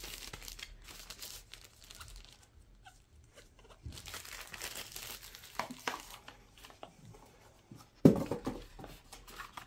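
Plastic and cardboard phone packaging rustling and crinkling in the hands: a translucent cover sleeve and a cardboard accessory envelope being handled, in short irregular rustles, with one louder bump about eight seconds in.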